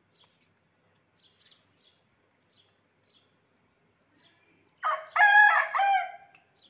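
Rooster crowing once, a loud cock-a-doodle-doo lasting about a second and a half, starting near the end after a few seconds of near quiet with faint high chirps.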